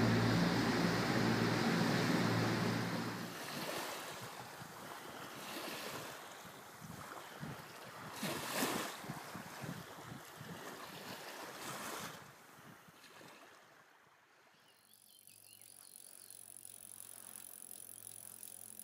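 A motorboat's engine hums under the rush of its wake, cutting off about three seconds in. Uneven, gusty noise with a few louder swells follows. In the last few seconds there is only a faint steady high hiss.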